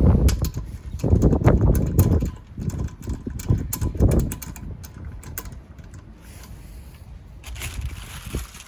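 Rapid runs of small metallic clicks from a ratchet or torque wrench working the wheel nuts, with gusts of wind buffeting the microphone.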